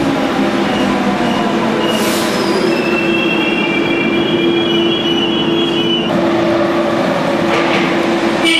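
Metro train running through an underground station with a steady rumble and motor hum. High-pitched wheel squeal sets in about three seconds in and cuts off about six seconds in.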